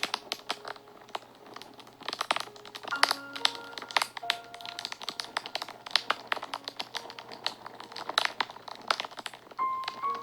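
Wood fire crackling and popping, with many sharp snaps at irregular intervals, over soft background music of short held notes.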